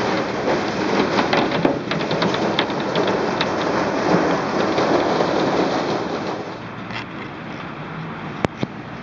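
Heavy hail falling, a dense hiss full of sharp clicks as hailstones strike hard surfaces. It eases off about six seconds in, and a single sharp knock stands out near the end.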